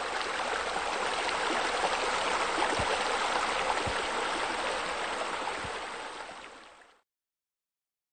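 Steady splashing of running water from a pool's bowl fountains spilling into the water, fading out and ending about seven seconds in.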